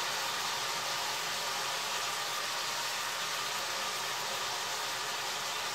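Minced meat sizzling steadily in a hot frying pan.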